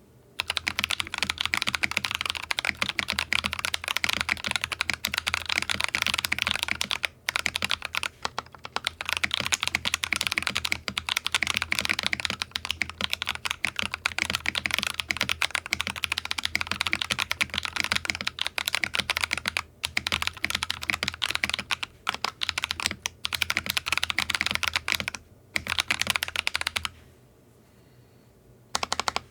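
Magegee Star61 mechanical keyboard with lubed Akko CS Ocean Blue tactile switches, a plastic plate, foam-dampened case and XVX-profile keycaps, typed on fast and continuously with a few brief pauses. The typing stops about two seconds before the end.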